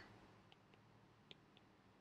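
Near silence: room tone with a few faint, short clicks of a stylus tapping a tablet screen while handwriting notes.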